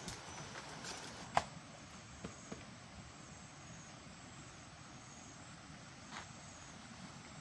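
Quiet forest ambience: a faint, high steady insect buzz over a low hiss. There is one sharp click about a second and a half in, and a couple of faint ticks soon after.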